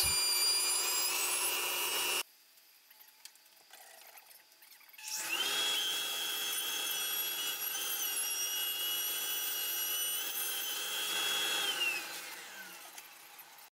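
Router running as it cuts a chamfer along the table edge, with a dust-extraction hose on it; it cuts off abruptly about two seconds in. After a quiet gap, a shop vacuum starts about five seconds in, runs steadily with a high whine, and winds down with a falling pitch near the end.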